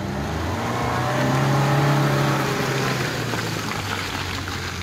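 A 4x4 off-road vehicle's engine pulling, its note rising in pitch and loudness to a peak about two seconds in, then easing off.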